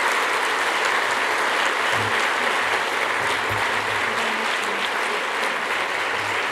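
Audience applauding steadily: sustained clapping from a seated crowd at the end of a talk.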